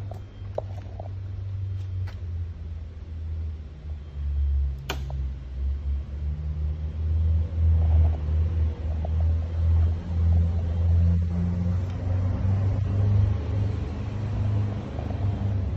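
2009 Harley-Davidson V-Rod Night Rod Special's V-twin running through an Akrapovic exhaust: a steady deep rumble that grows louder after about four seconds, with one sharp click about five seconds in.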